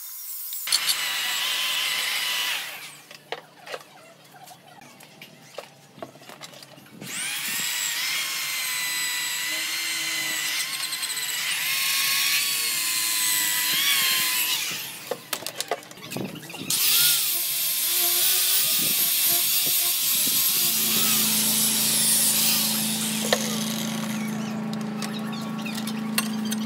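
Electric drill fitted with a wire cup brush and sanding pad, scouring rust off a steel rake head. It comes in three separate runs of harsh grinding, with the motor's whine rising and falling in pitch. In the last few seconds a steadier low hum comes from the tool at work on the steel handle tube.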